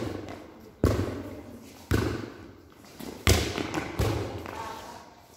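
A volleyball being hit back and forth in a rally: four sharp smacks of hands and forearms on the ball, each echoing in a large covered hall.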